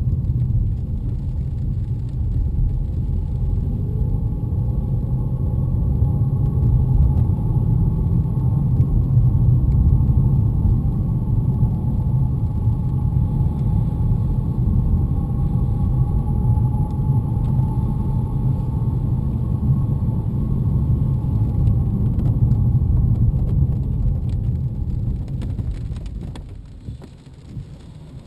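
BMW E90 driving with steady road and engine rumble under a thin, high-pitched whistling whine that wavers up and down in pitch. The whine is present whenever the car moves in gear, mostly under load, and its cause is unknown. Near the end the sound drops away as the car slows.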